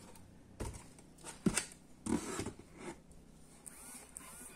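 Handling noise from a metal-cased power inverter being shifted in its cardboard box against foam packing: a few scrapes and rustles, the sharpest knock about a second and a half in.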